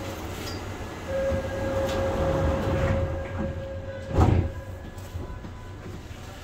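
Subway car's sliding doors closing. A steady tone sounds for about three seconds, then the doors shut with a thud about four seconds in, over the low running hum of the train.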